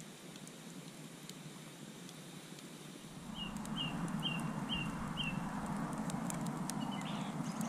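Wood campfire burning with faint crackles. About three seconds in it grows louder and fuller, and five short high chirps follow, about two a second.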